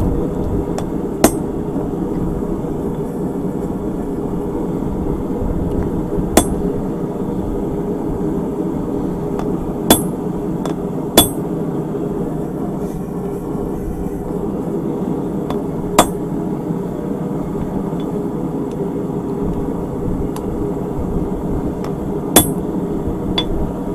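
Hand hammer striking a steel drift into hot round bar on an anvil, starting a punched hole: six sharp, widely spaced blows, two of them close together about halfway through. A steady low hum runs underneath.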